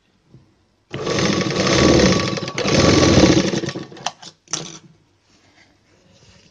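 Sewing machine stitching a seam through cotton blouse fabric: a fast, steady run of needle strokes lasting about three seconds with a brief break partway, then two short bursts of a few stitches before it stops.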